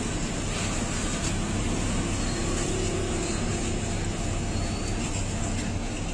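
Steady roadside traffic noise with a low, even hum underneath.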